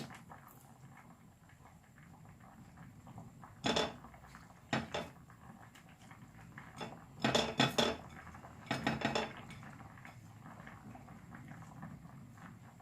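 Pots, pans and utensils clattering as they are handled in a kitchen: a couple of single clanks about four and five seconds in, then quick clusters of clinks and knocks around seven to nine seconds.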